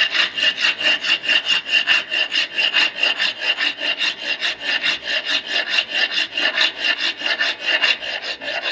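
Standard flat hand file, toothed on its faces and edge, rasping back and forth across a metal workpiece clamped in a bench vise, in quick, even strokes. A steady high ringing note runs under the strokes.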